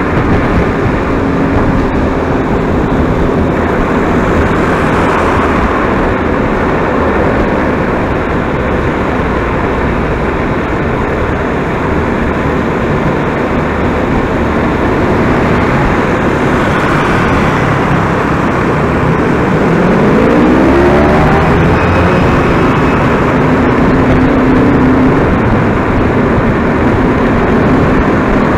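Steady engine and road noise of vehicles on the move. About twenty seconds in, an engine's pitch rises steeply as it accelerates.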